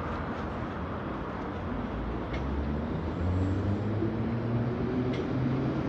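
London Underground Bakerloo line 1972 Stock train pulling away along the platform. Its traction motors hum, and the hum steps up in pitch and grows a little louder from about two seconds in as the train gathers speed.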